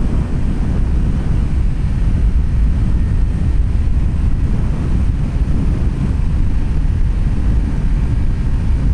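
Heavy wind rush buffeting the microphone of a Honda ADV 160 scooter ridden flat out, accelerating past 100 km/h into a strong headwind. The steady low rumble of the wind covers everything else.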